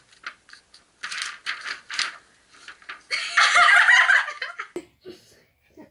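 Girls laughing: short breathy giggles, then a loud burst of high-pitched laughter about three seconds in that lasts a second and a half.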